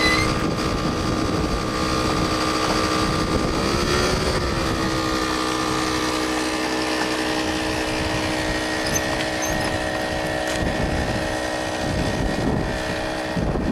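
A motor vehicle's engine running with a steady pitched drone. Its pitch dips briefly and recovers about four seconds in.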